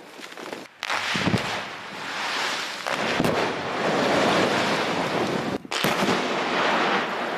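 Controlled rock-slope blasts set off with ammonium nitrate–fuel oil charges, several in succession. A sharp blast comes about a second in, with others near three and six seconds in, each followed by a long rushing rumble as rock and debris come down.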